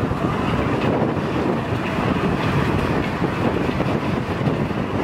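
Steady low rumbling noise of wind buffeting the microphone over passing street traffic.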